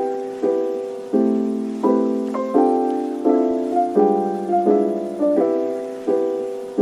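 Background music: piano chords struck one after another at a steady pace, about one every three-quarters of a second, each ringing and fading before the next.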